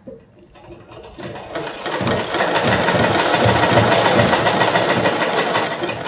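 Usha sewing machine stitching a seam. It starts about a second in, picks up speed, and then runs steadily.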